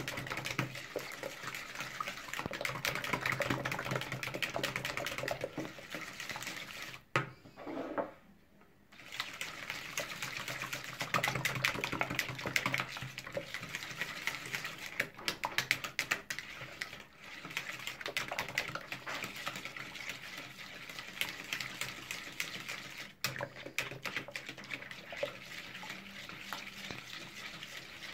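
Hand-whisking a runny egg and yogurt batter in a plastic mixing bowl. The whisk clicks rapidly against the bowl over a wet sloshing sound. It pauses about seven seconds in and briefly again near 23 seconds.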